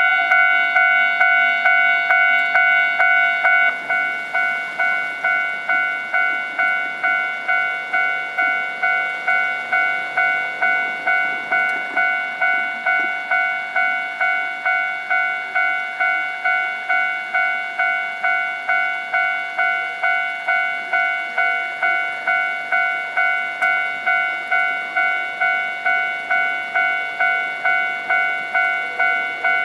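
Japanese railway level crossing warning bell ringing, an even electronic ding repeating about twice a second on a steady pitched tone. It is slightly louder for the first three and a half seconds, then steady.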